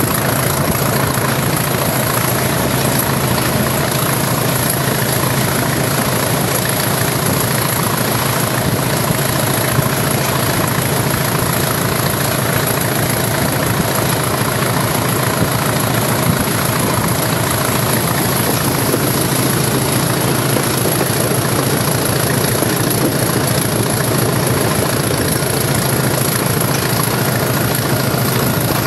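English Electric Class 20 diesel locomotive working hard under full power, its eight-cylinder turbocharged engine running at a steady heavy beat, heard from the cab window with wind and track noise rushing past. A steady high whistle sits above the engine.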